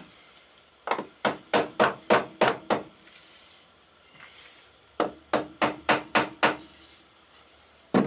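Hammer blows on a stuck part of a KLR 650 engine that won't come off. They come in two quick runs of sharp strikes, seven and then six, about three to four a second, with a faint metallic ring in the second run, and one more blow near the end.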